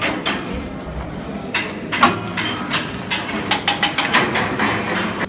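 A run of sharp clicks and knocks, coming faster in the second half, with the loudest knock about two seconds in.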